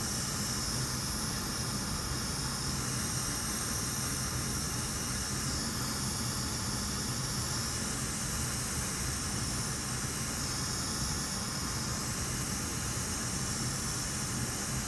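Hot air rework station blowing a steady hiss of hot air from its nozzle onto the metal shield plate of an iPad logic board, heating the plate to desolder it.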